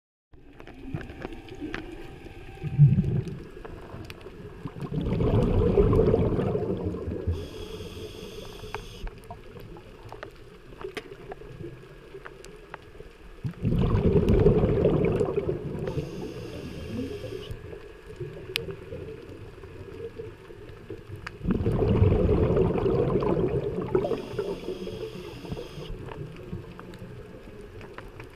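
Scuba diver breathing through a regulator, heard underwater: three exhalations of rumbling bubbles about eight seconds apart, each followed by a short high hiss from the regulator. A sharp thump about three seconds in.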